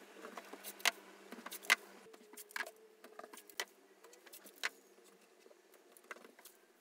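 Masking tape being pulled from the roll and pressed along the edge of a car's rear window: faint, scattered small clicks and crackles.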